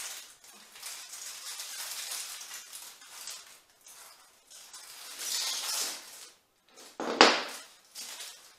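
Rustling and crackling of a leafy garland's foliage being handled and bent, with one sharp click about seven seconds in.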